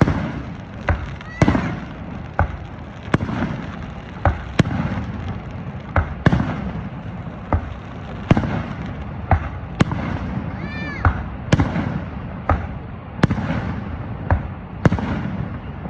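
Fireworks display: a series of sharp bangs, roughly one a second, each trailing off, over a steady background rumble.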